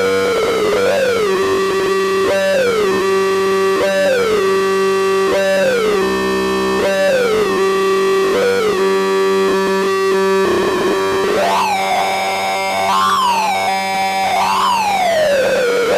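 Synthesized electronic sound effect: pitched tones that slide down and settle, over and over about every second and a half, above a steady low drone. Near the end the sweeps start higher and come faster.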